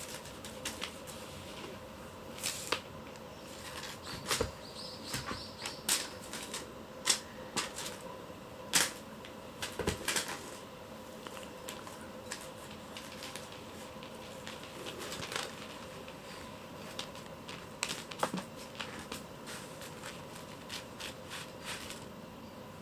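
Kittens playing with a cat teaser: irregular light taps, clicks and scrabbles, thickest in the first half, over a faint steady hum.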